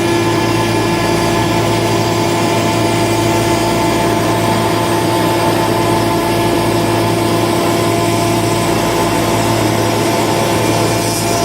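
YL-12242R+B+L-2 CNC router running with a steady machine whine, several held tones over a low hum.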